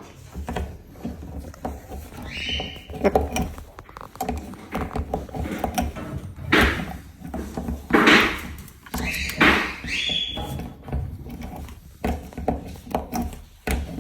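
Cockatoo calling: short pitched squawks about 2 s in and again near 10 s, and two loud harsh screeches in the middle, among scattered knocks and thumps.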